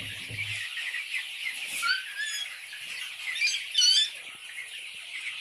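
A flock of chickens in a poultry shed: many birds cheeping and chirping at once in a dense, steady chorus, with a few louder calls about two seconds and about four seconds in.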